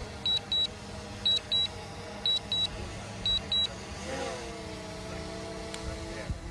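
DJI drone remote controller beeping, a pair of short high beeps about once a second, as it does while the drone returns home or auto-lands. Near the end a steady humming tone starts with a slight bend in pitch and holds for about two seconds.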